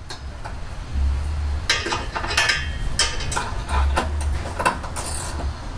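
Irregular light metallic clinks and knocks as an exhaust tailpipe and its hanger bracket are handled and shifted by hand, with dull low bumps in between.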